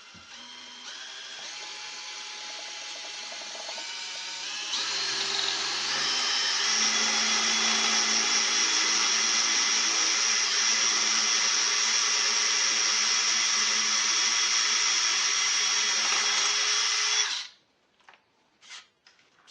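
Electric drill boring a hole into the steel of a safe door. The motor speeds up in steps over the first few seconds as the trigger is squeezed, then runs at a steady high whine, and cuts off suddenly near the end. A few faint clicks follow.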